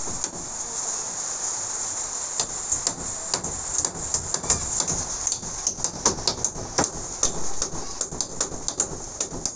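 Rain falling steadily, with many sharp, irregular drop hits on nearby surfaces.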